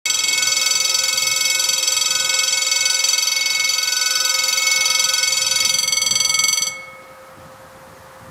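Level crossing warning bell ringing continuously, a shrill, rapidly pulsing ring that cuts off abruptly near the end.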